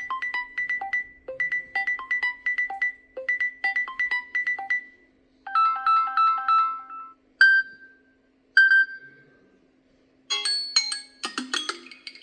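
Samsung Galaxy A42 5G preloaded ringtones and notification tones playing one after another: a looping melody of short mallet-like notes that stops about five seconds in, then a short chime phrase, two single pings, and a busier tone starting near the end.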